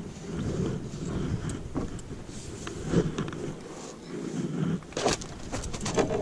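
Rustling handling noise as a landing net is taken up and worked, with a few sharp knocks, one about three seconds in and a quick pair about five seconds in.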